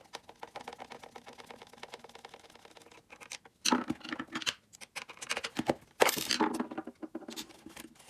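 Screwdriver working screws out of a plastic space heater's back casing: a run of fine, rapid clicks, then louder knocks and scrapes of the hollow plastic heater body being handled and turned over, about four and six seconds in.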